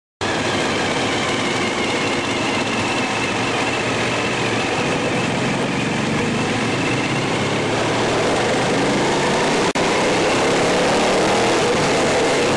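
Suzuki TL1000R's V-twin engine running hard at road speed, heard from the rider's seat with wind rush, its pitch climbing through the last few seconds as it accelerates. The sound cuts out for an instant about ten seconds in.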